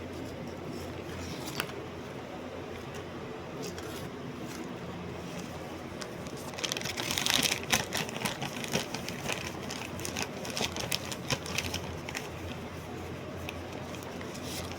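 A steady low hum, with a single click early on and then a flurry of rapid, irregular clicking and rattling from about halfway through that fades out a couple of seconds before the end.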